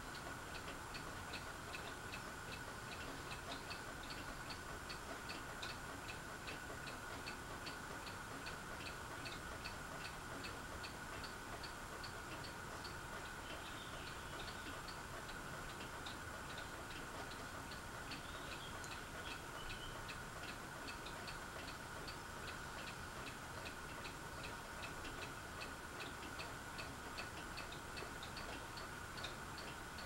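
Fasco Vanity Fair ceiling fan, its flywheel broken and housing loose, running very slowly on low: a faint steady hum with a regular tick about twice a second.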